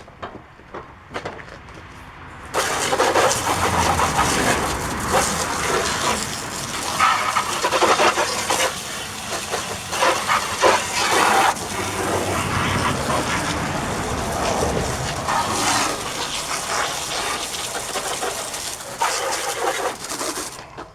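Water from a garden hose spraying onto a riding lawn mower to rinse off degreaser, a hiss and splash that starts abruptly a few seconds in, swells and fades unevenly as the spray moves over the machine, and cuts off just before the end.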